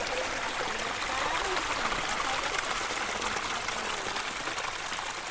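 Steady rushing noise like running water, with faint voices underneath.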